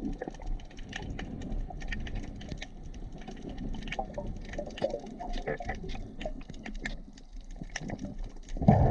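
Dense scattered crackling clicks over soft, uneven water noise, as heard with the microphone underwater. A louder, fuller burst of water noise comes right at the end.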